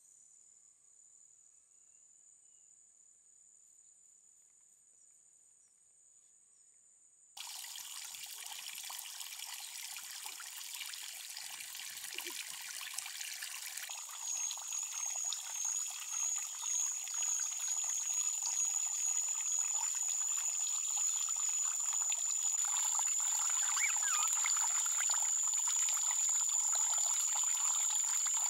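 Water running and trickling steadily, starting suddenly about seven seconds in after a near-silent start and slowly growing louder. From about halfway a steady high-pitched tone sounds over it.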